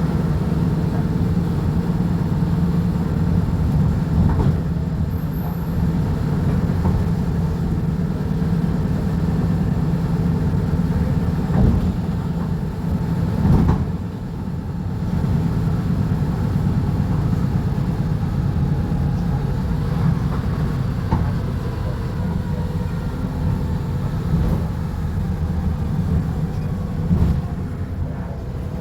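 Volvo B290RLE bus's diesel engine running steadily, a continuous low drone with rattles, broken by two short knocks about twelve and fourteen seconds in.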